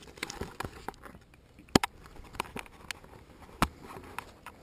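Close handling noise as the head-mounted camera and gear are fiddled with: irregular sharp clicks and knocks, the loudest a quick pair about two seconds in and another near the end.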